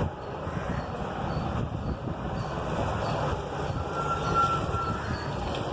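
Honda Unicorn 150's single-cylinder engine running steadily, with a brief high whistle about four seconds in.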